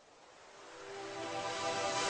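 Background music fading in: a sustained chord swelling steadily louder, with no beat yet.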